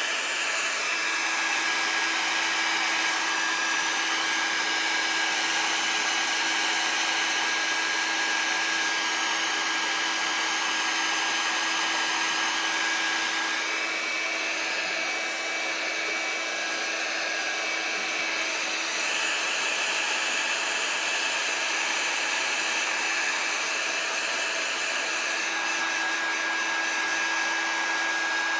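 Embossing heat tool running steadily, a blowing air rush with a steady fan whine whose upper tone shifts briefly about halfway through. It is heating the phone's screen until it is hot to the touch, to soften the adhesive so the digitizer can be pried off.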